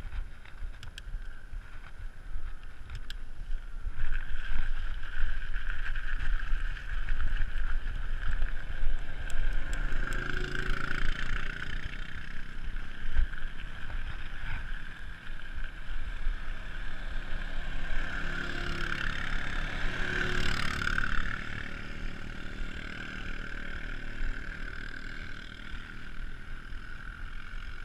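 Wind rushing over the camera microphone and tyres rolling on asphalt as a mountain bike descends a paved road, with a steady hum running through it that swells twice.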